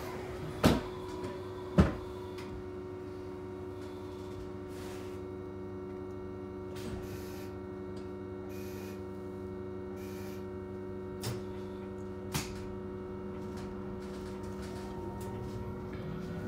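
Steady electric hum of an Ebusco battery-electric city bus at a standstill, several constant tones from its electrical and auxiliary systems heard inside the cabin. Two sharp clicks come about a second in and two fainter ones come a little after ten seconds. Near the end the hum changes as the level rises slightly.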